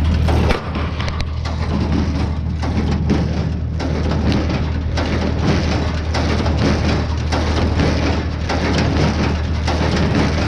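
A tractor and hay baler working: an engine runs steadily under a constant crackling, crunching noise as hay is taken in and packed.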